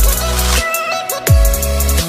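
Background music with a beat: a deep bass note that slides down in pitch hits at the start and again just over a second in, under a melody and fast high ticking percussion.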